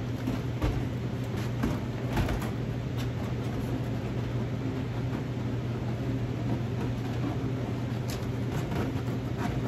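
Steady low machine hum, with a few light clicks and scrapes of a clear plastic storage tub being handled and scraped clean of drilling shavings.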